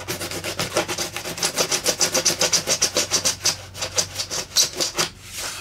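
Scalpel blade sawing back and forth through a model aircraft wing's veneer to cut a slot, a fast run of scraping strokes, several a second, that stops just before the end.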